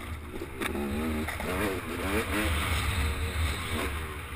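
Engine of an off-road trail-riding vehicle, its pitch rising and falling quickly as the throttle is worked, over a steady low rumble.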